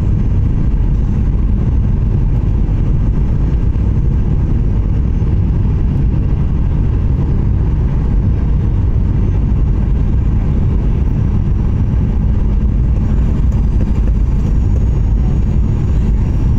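Steady roar of a jet airliner's engines and rushing air heard inside the passenger cabin on final approach, deep and unchanging, with a faint high whine joining near the end.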